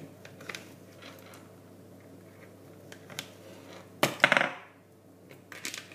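Kitchen handling noises: a few light clicks and knocks of cutlery and crockery, with one louder, ringing clatter about four seconds in.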